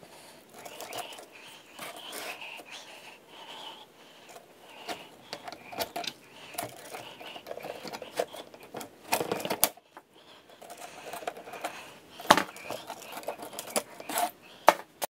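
Hand work on a short length of metal chain: links clinking and rattling, with irregular clicks and a few sharper knocks about nine, twelve and fourteen seconds in.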